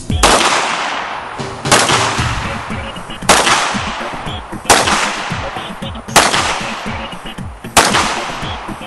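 Six pistol shots fired at a slow, even pace, about a second and a half apart, each trailing off in a long echo. Music plays underneath.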